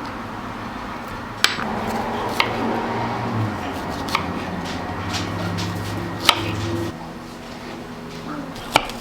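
A few sharp, separate taps or knocks of kitchen utensils, five in all, spaced irregularly over soft background music with held low notes; the music's low notes drop away about seven seconds in.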